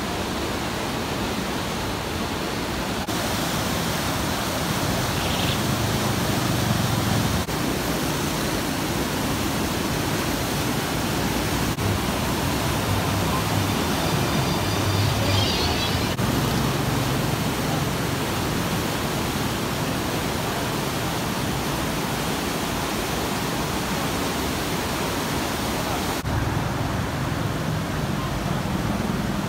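Indus floodwater rushing through the gates of Sukkur Barrage: a loud, steady noise of turbulent water during a high-flood discharge.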